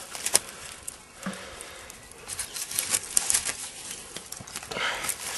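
Footsteps and scuffing on dry leaf litter and twigs: irregular rustling and crackling with a few sharp clicks.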